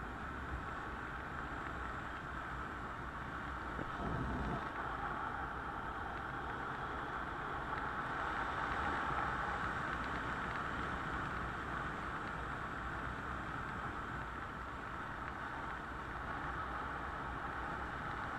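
Wind rushing over a helmet-mounted camera's microphone as a skydiver flies a parachute canopy down on final approach: a steady rushing noise that swells about a quarter of the way in and again around halfway through.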